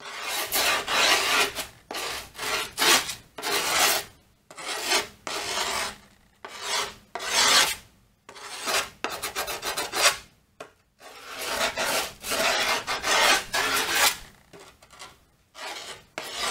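The rough file side of a silver skate tool rasped along the edge of a skateboard deck in short repeated strokes, about one or two a second, sanding the grip tape down against the deck's edge so the excess can be trimmed off.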